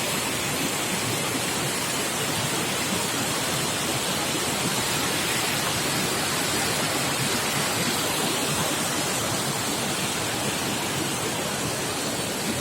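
Steady rushing water, an even continuous hiss with no breaks.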